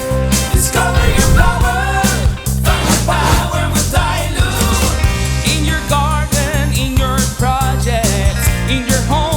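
Background rock music with a steady beat and a singing voice.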